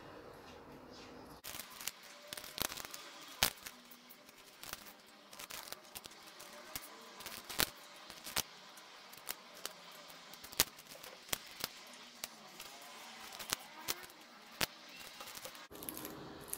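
Scissors snipping through a scarecrow's dried corn-husk hair, trimming it. The snips come as many short, sharp clicks at an irregular pace.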